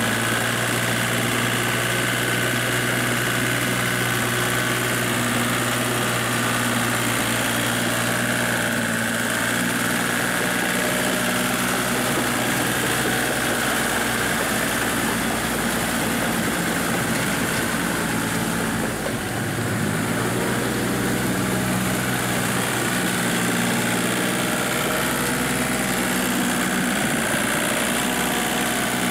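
Small Kubota tractor's diesel engine running steadily as it pulls a rotary tiller through paddy mud. The engine note shifts briefly about two-thirds of the way through, then settles again.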